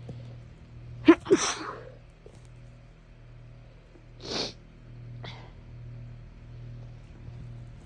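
A person sneezes once about a second in, a sharp catch followed by the main noisy blast, then sniffs a little after four seconds and once more, faintly, about a second later.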